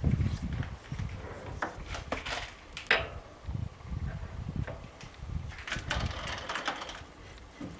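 Irregular metal clicks and clunks of a parting-tool holder being fitted and adjusted by hand on a lathe's quick-change tool post.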